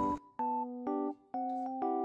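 Background music: electric piano playing sustained notes and chords, with two brief pauses between phrases.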